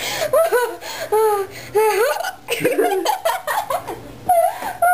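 A small child laughing in a run of short high-pitched bursts, broken by hiccups.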